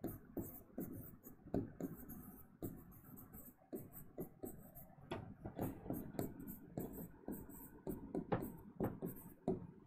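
Stylus tapping and scraping on the glass of an interactive whiteboard during handwriting: a quiet, irregular run of short taps and clicks, several a second.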